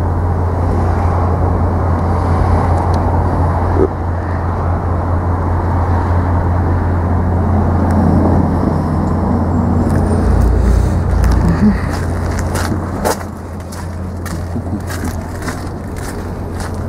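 Outdoor road traffic with wind on the microphone: a steady low rumble, a louder surge about ten seconds in, and a few sharp clicks near the end.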